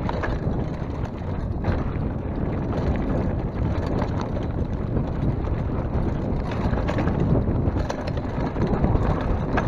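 Mountain bike rolling over loose rocky gravel: a steady crunch of tyres with scattered knocks and rattles from the bike as it hits stones, under wind noise on the camera microphone.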